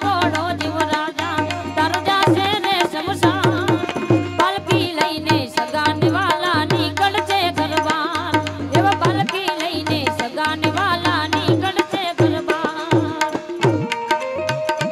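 A live Gujarati bhajan: a woman singing with tabla and melodic instrumental accompaniment. The tabla keeps a steady rhythm throughout, and the voice drops out in places, leaving the instruments alone.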